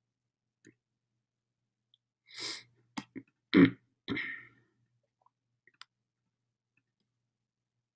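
A person clearing their throat into a computer microphone, with two sharp clicks, in a short burst about two and a half to four and a half seconds in.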